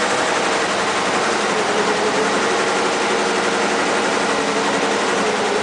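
SWF computerised commercial embroidery machine running and stitching, a loud, steady mechanical chatter with a constant hum.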